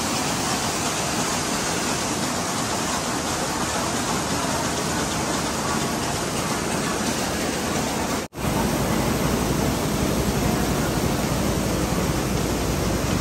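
Steady, dense din of jute mill machinery running, with no clear beat. It cuts out for an instant a little past eight seconds in, then comes back with a heavier low rumble.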